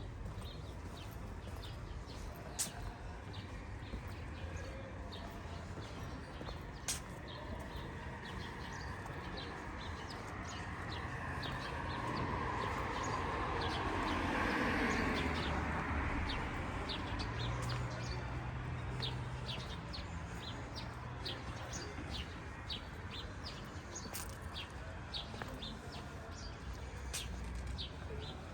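City street ambience on foot: footsteps on pavement ticking at a steady walking pace, with a vehicle passing by that swells to its loudest about halfway through and then fades.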